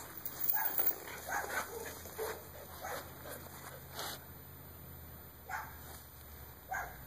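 Several short animal calls, one every second or so, with a sharp click about four seconds in.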